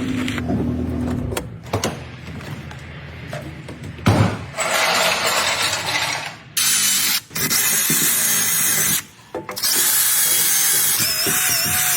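A quick run of hand- and power-tool noises from car repair work, cut together in short segments: ratcheting and mechanical clicking, then long stretches of steady hiss.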